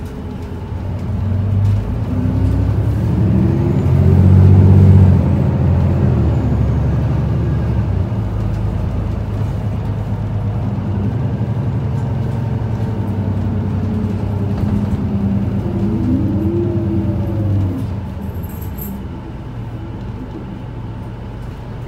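Isuzu Erga city bus (QKG-LV234L3) diesel engine and running noise heard from inside the cabin. It pulls louder about four seconds in as the bus accelerates, runs steadily while cruising, and eases off near the end.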